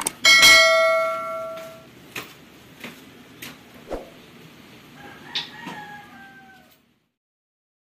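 Subscribe-button animation sound effects: a click, then a bell-like chime that rings out and fades over about a second and a half, followed by several sharp clicks. Near the end a short call slides down in pitch, and then the sound cuts off.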